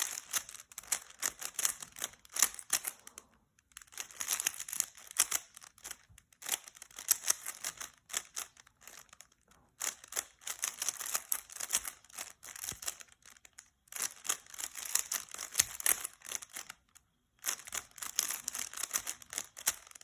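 Rubik's Cube being turned by hand during a timed solve: fast runs of plastic clicking and clacking as the layers are turned, broken every few seconds by short pauses.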